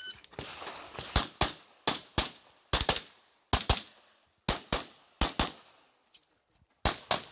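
CZ Shadow 2 9mm pistol fired in quick doubles and triples during a practical-shooting stage, the pairs coming every half second to a second. Near the end there is a gap of about a second and a half, then the shooting starts again.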